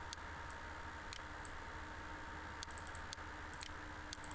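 Scattered computer mouse and keyboard clicks, single clicks at first and small quick clusters later, over a faint steady hum.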